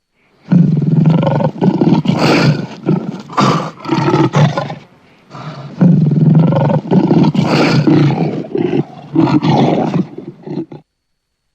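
African lion roaring in two loud bouts of about four to five seconds each, every bout a run of several deep, rough pulses, with a short pause between the bouts.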